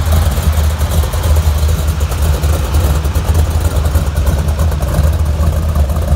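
Supercharged V8 in a rat-rod pickup, with a chrome blower on top and open exhaust stacks, running at a steady low idle as the truck creeps past. The exhaust has a deep, rapidly pulsing rumble.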